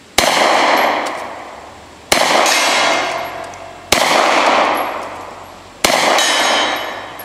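Four 9mm shots from a Hi-Point 995 TS pistol caliber carbine, about two seconds apart, each followed by a long fading ring, with steel target plates clanging as the rounds strike.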